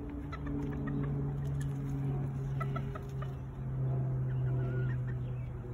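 Chickens clucking in short, scattered calls, over a steady low hum.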